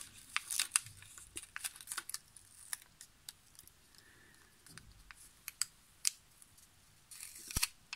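Faint, irregular small clicks and paper crinkles as fingers press and fold an adhesive paper label around a small die-cast toy car wheel on its axle, with a denser run of clicks near the end.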